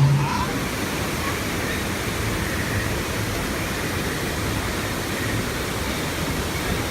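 Steady rush of falling water, like a waterfall, an even hiss with no breaks.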